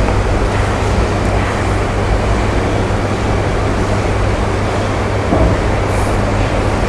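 Steady, fairly loud background noise with a low hum running under it, and a short hiss about six seconds in.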